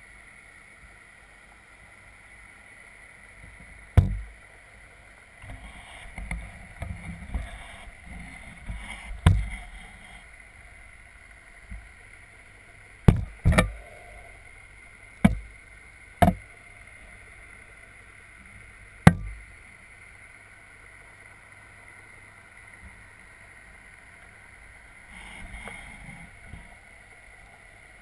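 Large pond fish bumping and brushing against an underwater camera housing: about seven sharp knocks, two of them close together about thirteen seconds in, with low rubbing and scraping between them. A steady underwater hum runs underneath.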